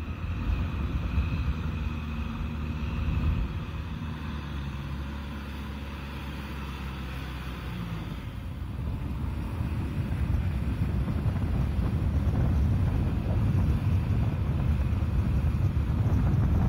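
An engine runs steadily with an even hum. About halfway through, the sound changes to a tractor driving a rotary tiller through a flooded paddy: the engine is under load and the churning of mud and water grows louder toward the end.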